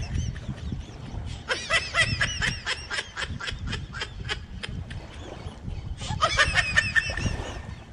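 Two bouts of rapid, high-pitched laughing calls, about five a second, over a low steady rumble.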